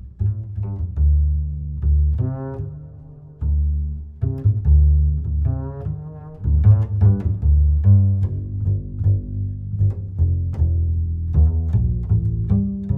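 Background music built on low string notes, a bass line stepping from note to note.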